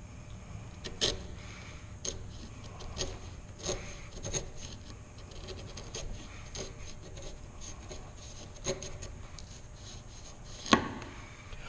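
A 3/4-inch bench chisel pushed by hand with downward pressure, paring thin shavings from the floor of a shallow groove in a board: soft scraping with irregular light ticks as the edge cuts, and one sharper click near the end. These are small, gradual strokes to flatten the groove bottom to its final depth.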